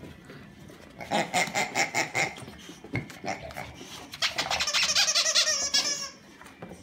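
Squeaker in a plush dog toy squeaking, first in a quick string of short squeezes about a second in, then in a longer wavering run of squeaks a few seconds later.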